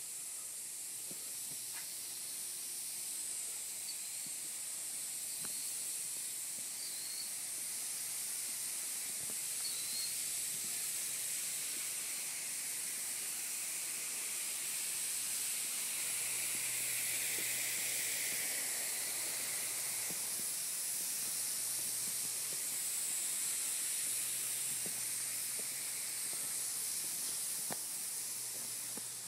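Steady high-pitched hiss, with a few faint short chirps in the first ten seconds and scattered soft clicks.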